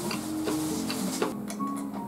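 Background music of held notes, with a few light ticks over it.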